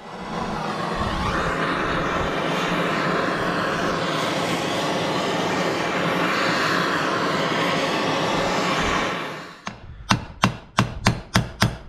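A heat gun running steadily for about nine and a half seconds, then about eight sharp hammer taps in quick succession, driving a bearing into the crankcase half.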